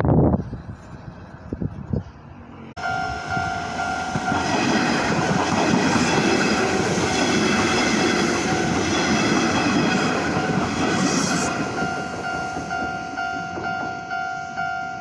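Nishitetsu Tenjin-Ōmuta Line train passing over a level crossing with a loud rumbling rush and wheel clatter, while the crossing's electronic warning bells ding at a fast, steady beat. The train noise sets in suddenly about three seconds in and fades after about eleven seconds, leaving the bells ringing.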